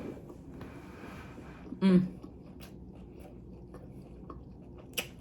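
A person chewing a bite of food up close to the microphone, with faint wet mouth clicks, a short hummed "mm" about two seconds in, and a sharper click near the end.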